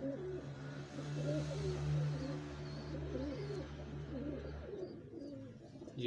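Domestic pigeons cooing, many short overlapping calls throughout, over a steady low hum that stops near the end.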